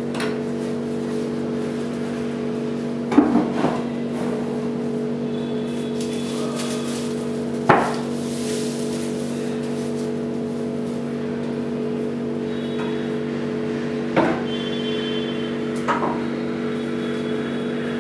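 Sharp knocks and clunks, about five in all, as carved wooden dome pieces are set onto the top of a wooden home temple, over a steady low hum.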